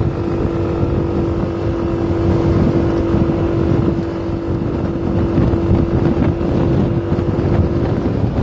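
Moving-vehicle road and engine noise with wind buffeting the microphone. A steady hum sits over the rumble and stops shortly before the end.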